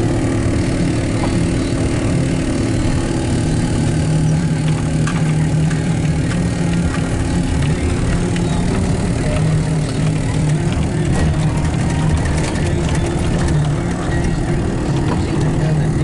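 Steady low engine drone over a rumbling noise, unchanging in pitch and level, with a few scattered clicks.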